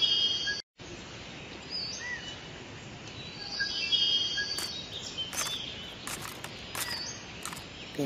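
Outdoor nature ambience: birds chirping over a steady background hiss. There is a brief total dropout soon after the start and a few short clicks in the second half.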